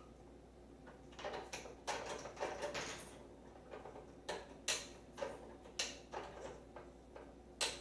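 Small plastic and metal parts of a microwave door latch clicking and clattering as they are handled and fitted back into the door frame: a run of sharp clicks and scrapes, with a crisp snap near the end.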